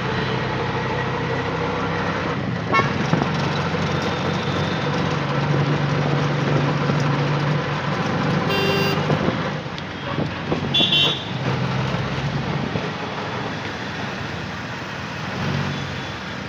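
Steady vehicle running noise with a few short horn toots, one a little after halfway and another about two seconds later.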